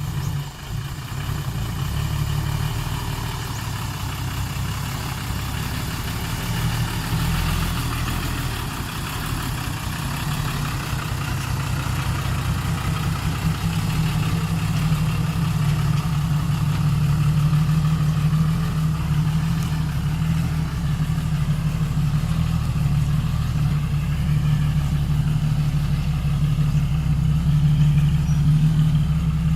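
Hitachi hydraulic excavator's diesel engine running steadily, growing a little louder from about halfway through.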